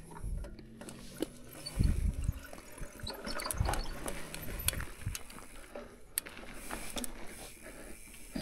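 Mountain bike descending a dirt and rock trail: tyres rolling over the ground, with the bike thudding over bumps and drops and frequent sharp clicks and rattles. The heaviest thud comes about two seconds in.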